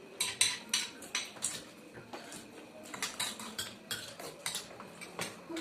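Spoons clinking and scraping against plates during fast eating: many short, irregular clicks, several a second.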